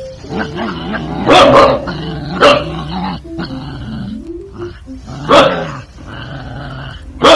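A dog barking and growling, with loud barks about a second and a half in, at two and a half seconds and at about five seconds.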